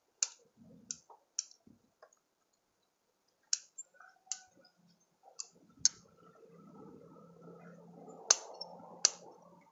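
Bonsai pruning shears snipping twigs on an anting putri (Wrightia religiosa): about eight sharp, irregularly spaced snips, the loudest two near the end. From about halfway, a faint rustle of leaves and branches being handled.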